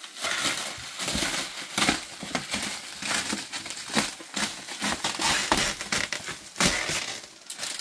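Plastic stretch wrap being cut, torn and pulled off a pallet of boxes: dense crinkling and crackling, with a few louder crackles.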